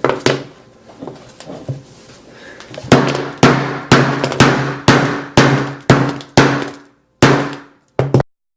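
A 3-pound hammer striking an iPhone 7 over and over, about two sharp blows a second, each with a short ring, after a single blow and a few lighter knocks.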